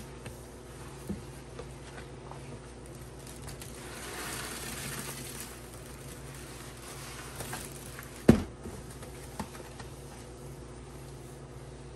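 Wet sponges being scrubbed and squeezed through foamy cleaning paste in a plastic tub, with soft squelching and a louder wet hiss about four seconds in. There is a single sharp knock a little past eight seconds, the loudest sound.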